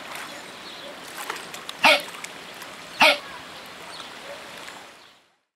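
Capybara giving short, sharp, hiccup-like calls, two of them about a second apart, over a steady outdoor hiss.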